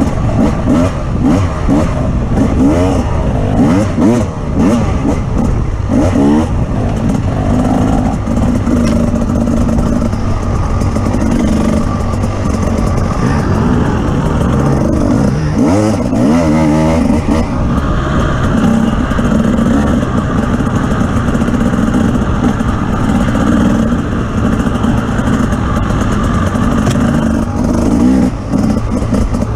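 Off-road vehicle's engine running under load over rough terrain, its pitch rising and falling repeatedly as it revs up and eases off.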